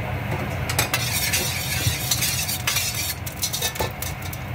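Food sizzling in a hot pan while being stirred, with a metal utensil scraping and clicking against the pan. The sizzle swells loudest in the middle, over a steady low hum.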